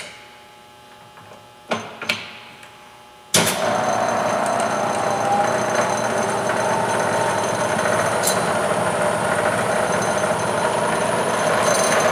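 A few clicks at the head controls, then about three seconds in the spindle of a Bridgeport 2J Varispeed milling head starts up in high range and runs steadily with a whine.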